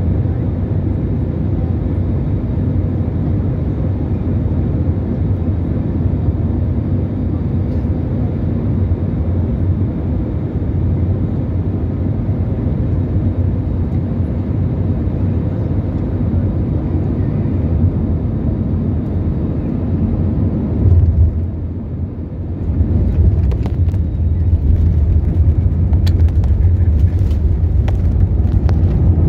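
Airliner cabin noise on final approach: a steady low rumble of engines and airflow. About two-thirds of the way through it swells briefly and dips, then a louder, rougher rumble with scattered rattles follows as the plane touches down and rolls along the runway.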